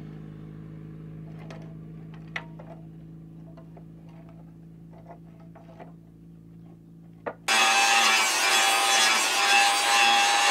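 A quiet low hum with a few light metallic clicks, then about seven and a half seconds in an angle grinder starts grinding a steel machete blade loudly: a harsh, steady rasp with a steady whine over it.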